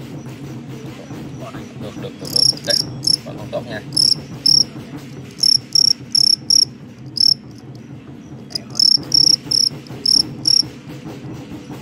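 Male fighting crickets chirping: some fifteen short, high chirps in clusters of two to four, starting about two seconds in and stopping shortly before the end. A steady low hum runs beneath.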